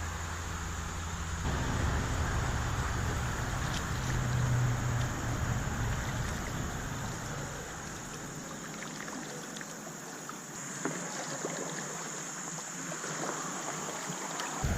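Steady rush of moving river water, with a low wind rumble on the microphone that dies away about two-thirds of the way through.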